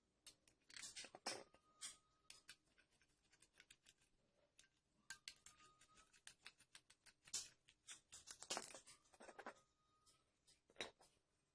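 Hand work on small model-truck parts: irregular scratching and scraping strokes with sharp clicks, in uneven bunches. A brief thin squeak sounds about three times.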